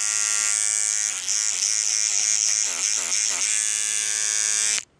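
Oral-B battery electric toothbrush running on a AA battery at its ordinary so-so speed, a steady buzz whose pitch wobbles for a while in the middle, then stops abruptly near the end.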